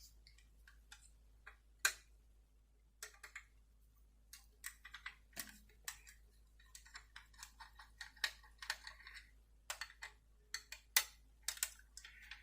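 Screwdriver backing the base screws out of a die-cast model car: irregular light clicks and taps of metal and plastic, with sharper clicks about two seconds in and near the end.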